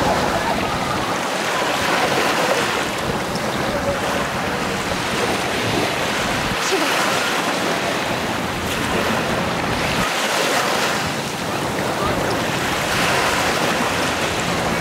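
Small sea waves breaking and washing up over a pebbly sand beach, the surf swelling and drawing back every few seconds.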